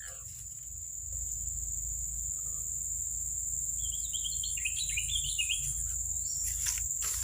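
Steady high-pitched drone of insects such as crickets, with a bird giving a quick run of short chirps about four seconds in.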